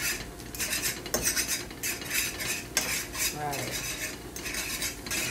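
A utensil scraping and stirring scrambled eggs in a nonstick frying pan, in repeated short strokes about once or twice a second.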